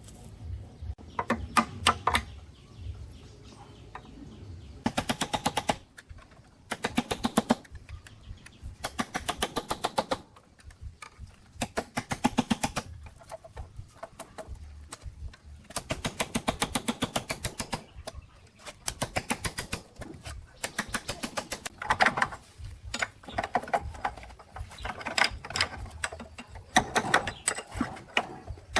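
Rapid rattling impacts in bursts of about one to two seconds, with short pauses between, repeating throughout.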